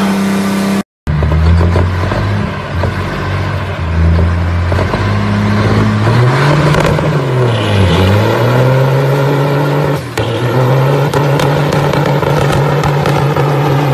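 A big-rig diesel truck's engine revving hard under load during a burnout, its pitch swinging up and down around the middle and then holding steady. A brief dropout about a second in.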